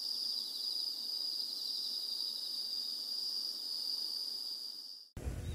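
Insects shrilling steadily at a high pitch, with a rapid pulsing trill beneath, until the sound cuts off abruptly about five seconds in and gives way to a different outdoor noise.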